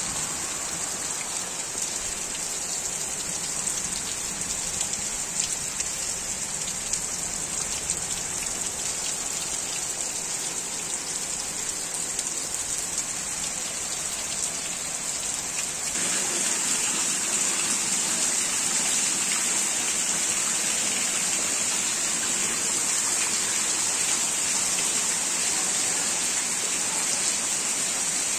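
Torrential rain pouring down and pattering on the ground and surrounding surfaces, a steady hiss that grows louder a little past halfway through.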